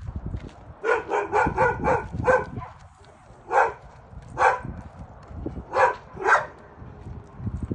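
A dog barking: a quick run of about six barks, then four single barks spaced out over the next few seconds.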